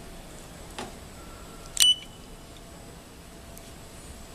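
A single short, high electronic beep about two seconds in from the control keypad of a CNC paper guillotine as a key is pressed, confirming the entry while the segment-setting menu is opened. A faint tap comes about a second before it.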